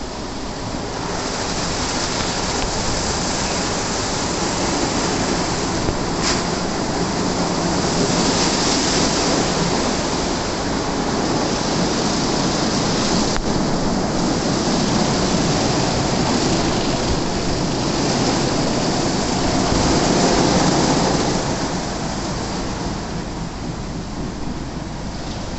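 WashTec SoftCare 2 Pro rollover car wash in its brush wash: spinning side and roof brushes swishing over a car, with water spraying, a steady hissing wash noise that swells slightly near the end.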